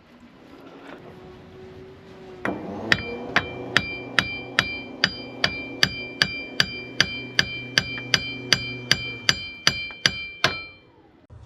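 A hammer striking metal in a steady run of about twenty blows, roughly two and a half a second, each ringing out metallically. The blows start about two and a half seconds in and stop shortly before the end.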